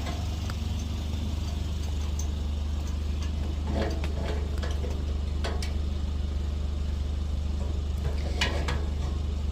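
Vehicle engine idling steadily with a low drone, with a few faint knocks near the middle and towards the end.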